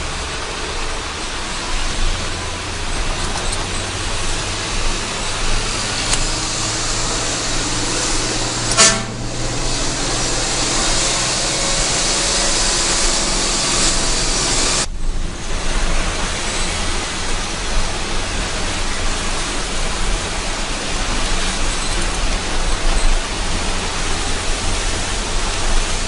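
Engine and road noise heard from inside a moving vehicle's cab, with a steady low engine hum. A short horn toot sounds about nine seconds in.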